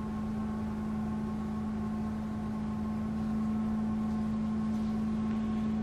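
Steady background hum: one low, unchanging drone with a fainter higher tone and a light hiss, and no distinct event.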